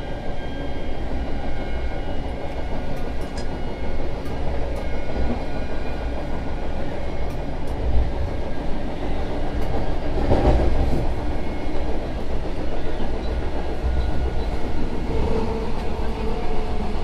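Inside the driver's cab of a Vande Bharat Express electric multiple unit under way: steady running rumble with wheels clicking over the rail joints. About ten seconds in, a louder rush as a train on the adjacent track passes by.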